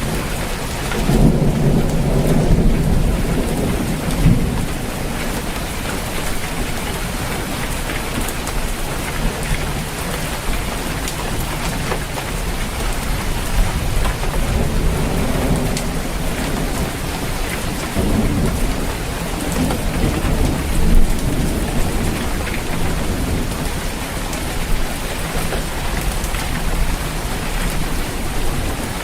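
Steady heavy rain on a roof, with low rolls of thunder rumbling in about a second in and again around two-thirds of the way through.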